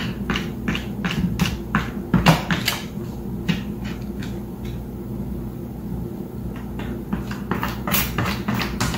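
A cat's paws tapping and scratching at the lid of a plastic storage bin: a quick run of sharp taps, about three a second, with a lull of about two seconds past the middle, over a steady low hum.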